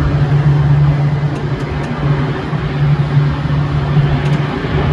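Boeing 777-300's twin jet engines running at high power as the airliner rolls along the runway, a steady loud roar with a low hum underneath.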